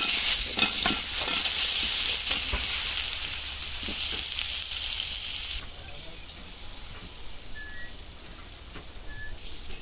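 Cubed raw potatoes tipped into hot oil in a karahi, frying with a loud sizzle. Just over halfway through the sizzle drops suddenly to a quieter, steady frying.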